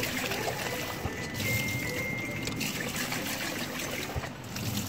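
Tap water running into a stainless steel pot while a hand swishes raw rice around in the water: rice being rinsed.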